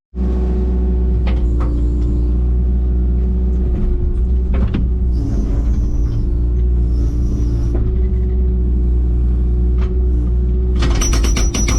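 Digger's diesel engine running steadily, with a hydraulic whine over it and a few short knocks. A loud metallic clatter starts near the end.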